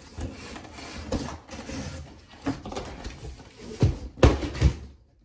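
Cardboard scraping and rubbing as a heavy box is worked out of a larger cardboard shipping box, with three dull knocks of the box near the end, the loudest about four seconds in.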